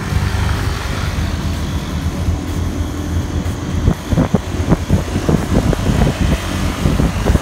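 A vehicle's engine and road noise, a steady low hum while driving. From about four seconds in, irregular thumps and buffeting are added.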